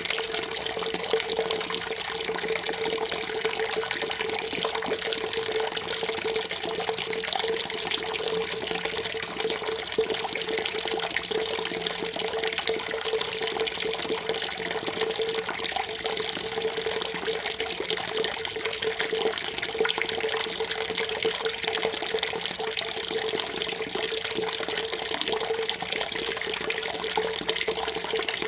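Steady running, splashing water that flows on without a break, with a faint steady hum beneath it.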